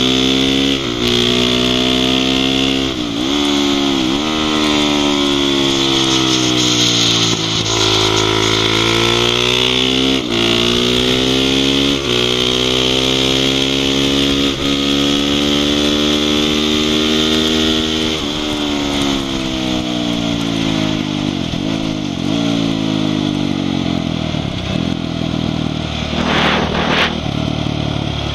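Honda CRF450 supermoto's single-cylinder four-stroke engine on track, revs climbing repeatedly under acceleration and dropping sharply at gear changes and as it slows for corners, over a steady hiss.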